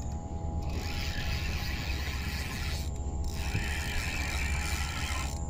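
Fishing reel being cranked with a mechanical ratcheting whirr, winding in line in two spells with a short pause near the middle, as a hooked giant freshwater prawn is brought in.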